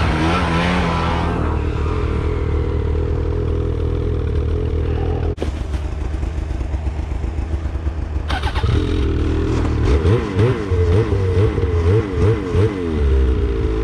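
Snowmobile engines running at idle, dipping briefly about five seconds in, with short throttle blips in the last few seconds as the sleds work to get out of slush.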